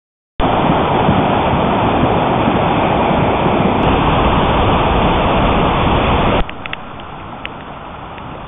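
Swollen floodwater rushing loudly, a steady roar of torrent noise. About six seconds in it drops abruptly to a quieter rush of water with a few faint clicks.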